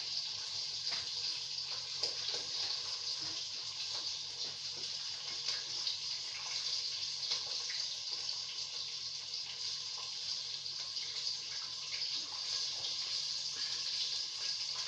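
Hot oil sizzling steadily in a cooking pot, with tomato paste frying in it and small crackles throughout.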